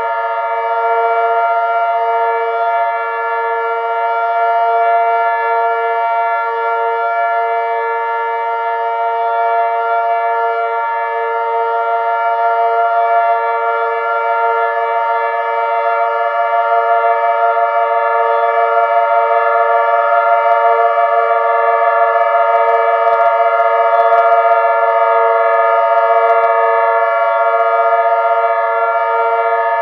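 A mix of several outdoor warning sirens sounding together (a Whelen, an XT22 and two Thunderbolts), all held at a steady pitch, so the tones merge into one loud sustained chord that beats and pulses slowly.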